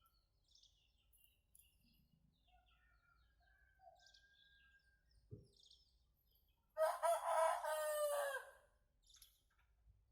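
A rooster crows once, loud and lasting nearly two seconds, starting about seven seconds in and dropping in pitch at the end. Faint scattered bird chirps come before it.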